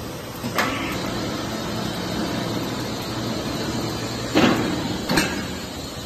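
Automatic palletizing gripper of a paint-pail filling line running with a steady mechanical hum while it carries four metal paint pails. Three sharp knocks come from the machine: one about half a second in, the loudest a little after four seconds, and one about a second after that.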